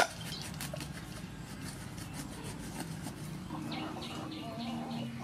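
One sharp chop of a cleaver through fish into a wooden chopping block right at the start, then a low background with faint short animal calls.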